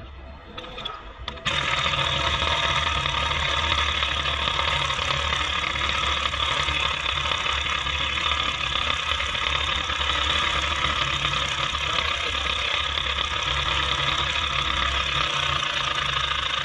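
Handheld electric power tool running against a steel wheel hub. It starts abruptly about a second and a half in, runs at a steady speed for about fifteen seconds and cuts off suddenly.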